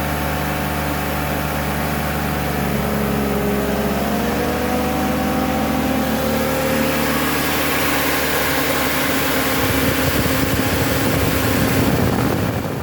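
BMW M52TU straight-six idling steadily while an electric cooling fan spins up about three seconds in, with a whine rising in pitch and a rush of air that grows louder.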